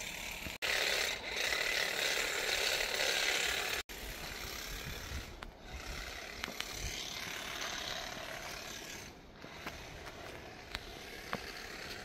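Outdoor background noise: a steady rustling hiss, louder for the first four seconds, with two brief dropouts about half a second and four seconds in.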